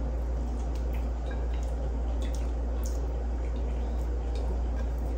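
A person chewing food close to the microphone, with scattered small wet clicks, over a steady low hum.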